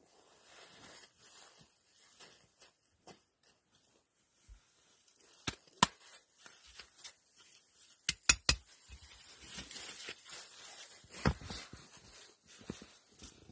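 Hands scraping through gravel and handling loose stones, with a few sharp knocks of stone on stone: two about halfway through, a quick run of three soon after, and one more near the end.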